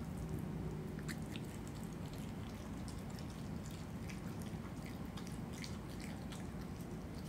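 Opossum chewing and biting at a rotisserie chicken, pulling at the meat, heard as many short irregular clicks. A steady low hum runs underneath.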